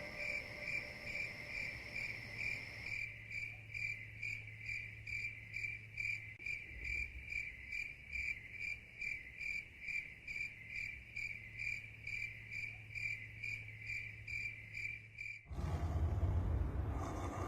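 Cricket chirping in an even rhythm, about three short high chirps a second. About fifteen seconds in it cuts off abruptly and a rushing noise takes over.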